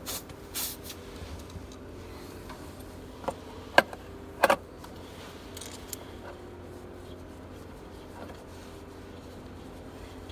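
Compression tester gauge and hose being handled: a few light metal clicks and knocks, the loudest about four seconds in, over a faint steady hum.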